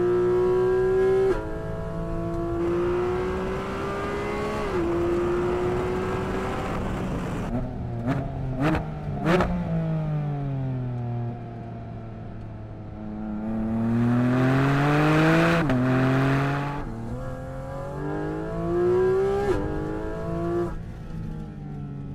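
Porsche 718 Cayman GT4 RS's naturally aspirated 4.0-litre flat-six revving hard through upshifts, each a climbing note cut off by a sharp drop in pitch. About eight to nine seconds in come a few sharp cracks, then the note falls away as the car slows before climbing through the gears again.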